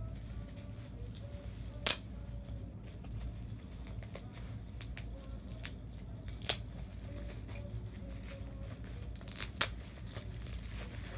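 Gift packaging being handled and torn: a few short, sharp rips and crackles a few seconds apart, the loudest about two seconds in and near the end, over a low steady room hum.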